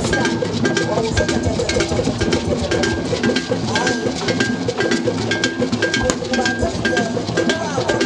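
Ensemble of hand-played barrel drums beating a fast, dense rhythm, with a short high tone striking on an even beat about twice a second.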